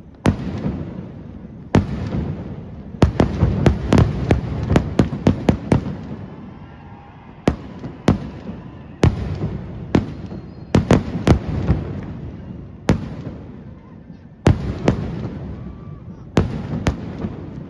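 Kerala temple-festival fireworks (vedikkettu): aerial shells bursting in a string of sharp bangs, each trailed by an echoing rumble. The bangs come thick and fast a few seconds in and again past the middle, more spaced out elsewhere.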